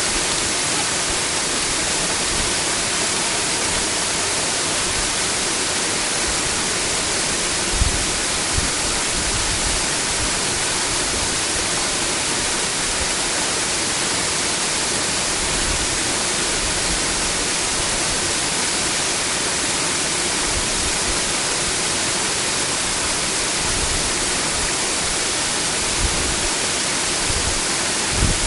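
Waterfall rushing steadily, with a few brief low thumps about 8 seconds in and near the end.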